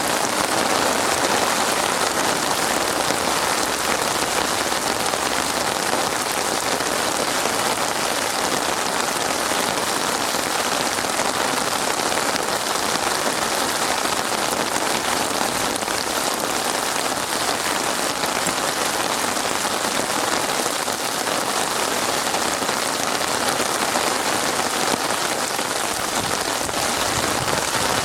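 Steady rain falling, an even hiss of many drops with no change in strength.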